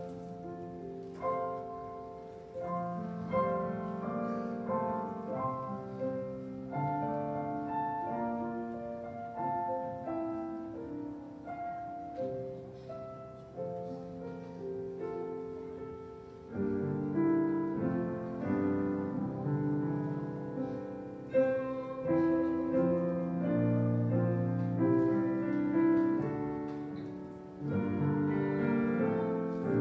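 Solo piano playing a slow instrumental offertory piece in chords and melody, louder in the second half.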